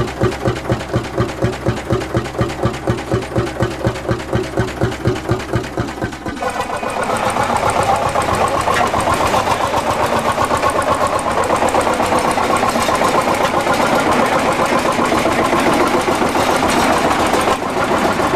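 Vintage engine running with a slow, even beat, about five a second. About six seconds in, it gives way to a louder, busier and steadier engine sound.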